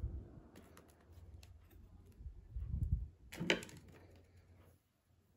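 Metal spoon scooping whipped cream from a bowl and spreading it on a cake, with soft knocks and light clicks of the spoon and bowl, one sharper click about three and a half seconds in.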